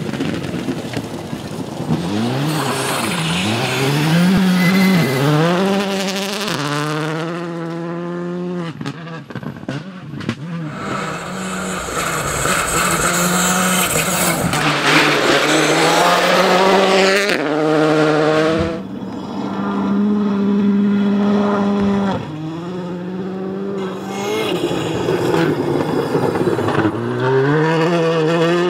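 Škoda Fabia R5 rally car's turbocharged four-cylinder engine revving hard and shifting up through the gears as it drives flat out on gravel, the revs climbing and dropping again and again, with gravel noise under the tyres. Several separate passes follow one another with abrupt cuts between them.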